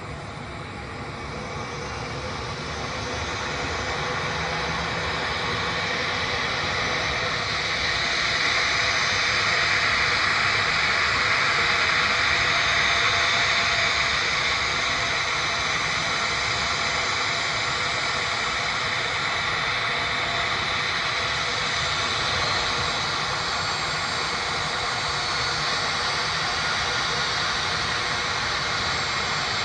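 Jet airliner engines running, a steady hissing engine noise with faint high whining tones. It swells over the first several seconds, is loudest around ten to fourteen seconds in, then holds a little lower.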